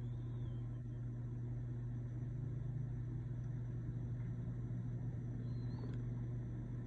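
Aquarium equipment humming steadily: a constant low electrical drone with an even hiss under it.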